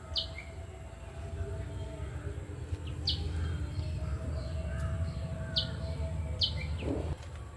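A bird calling in short, high chirps, each a quick downward sweep, heard about four times over a steady low rumble.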